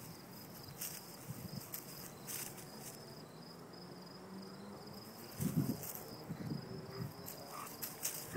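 Crickets chirping steadily in the background, an even high pulsing chorus. About five and a half seconds in there is a brief, louder low sound from the playing dogs.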